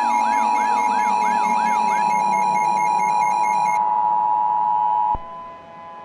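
Emergency Alert System attention signal: the steady two-tone alarm (853 and 960 Hz together), overlaid with a repeating rising whoop about twice a second that stops about two seconds in. The tone cuts off abruptly about five seconds in, leaving a much quieter lingering tone.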